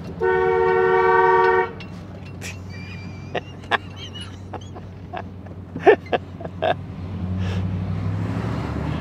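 A car horn sounds once, one steady blast of about a second and a half, over the low running hum of the 1992 Chevy pickup's 5.0 V8 heard from inside the cab. A few faint clicks follow, and the engine grows louder near the end.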